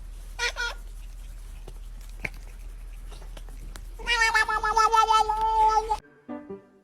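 A cat meowing: one short meow about half a second in, then a long, wavering, drawn-out yowl of about two seconds near the end.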